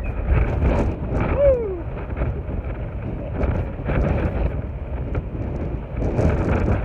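Strong wind buffeting the microphone in gusts, a loud low rumble. A brief falling tone comes about a second and a half in.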